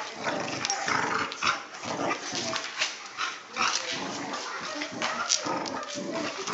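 Two dogs play-fighting, growling and grumbling at each other in irregular bursts, with sharp clicks and snaps through it.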